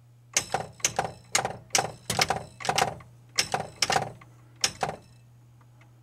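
Solenoid coil in a 1981 Bally Medusa pinball machine firing again and again as its driver-transistor tab is grounded with a jumper wire. It makes sharp, irregular clacks, often in quick pairs, for about four and a half seconds over a low steady hum. The coil and its wiring are working, which leaves the fault on the driver board.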